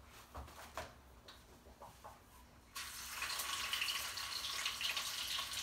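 Hash browns laid into a frying pan of hot olive oil, which starts to sizzle suddenly about three seconds in and keeps sizzling steadily. Before that there are a few faint clicks as the hash browns are handled.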